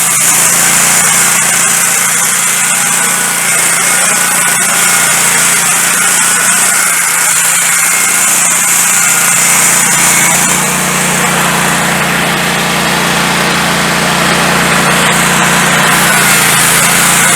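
Wood-Mizer LT15 Go portable band sawmill running steadily, its engine humming and the band blade cutting a slab off a pine log.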